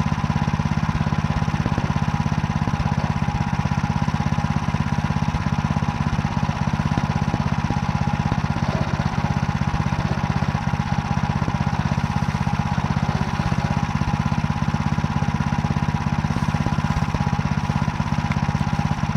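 Small engine running steadily under load, driving a Motor Sich rotary tiller through barley stubble in second gear. Its even, fast-pulsing note stays level throughout.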